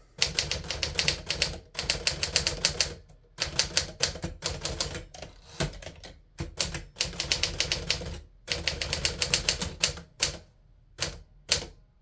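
Smith Corona Silent Super manual typewriter being typed on: quick runs of key strikes broken by short pauses, thinning to a few single strikes near the end.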